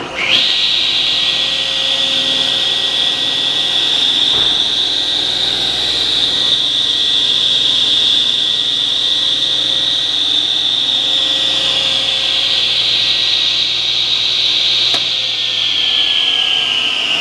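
Table saw switched on and spinning up, then running steadily with a high-pitched whine. About fifteen seconds in it is switched off and begins to coast down, the whine falling slowly in pitch.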